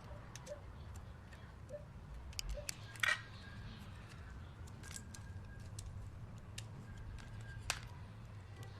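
Scattered small clicks and taps of drone parts and a small tool being handled during a motor swap, with a sharper click about three seconds in and another near the end, over a faint steady hum.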